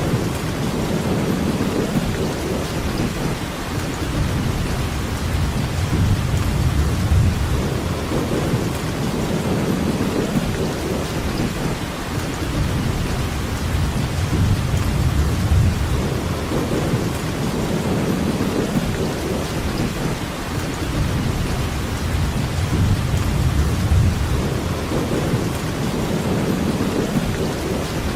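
Steady rainfall: an even hiss of rain with a continuous low rumble underneath that swells and fades every few seconds.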